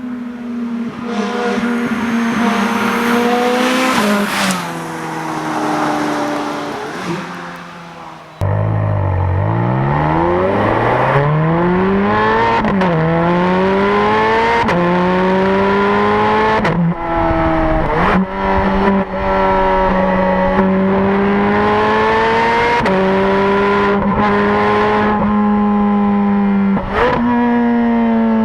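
Ferrari F430 Scuderia's flat-plane V8 being driven hard. For the first several seconds its note falls away from high revs. After an abrupt cut it accelerates from low revs, the pitch climbing and dropping back at each upshift, then holds a fairly steady high note broken by a few brief lifts.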